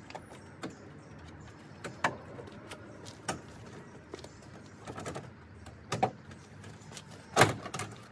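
Plastic clips and hooks of a Toyota Tundra's grille clicking and knocking as the grille is pulled up and away from the truck, in a string of separate clacks with the loudest about seven seconds in.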